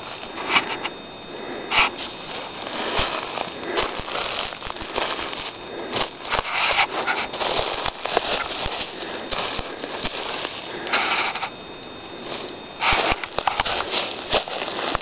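Footsteps crunching and rustling through dry leaf litter, irregular steps and scuffs with a few sharp snaps of twigs.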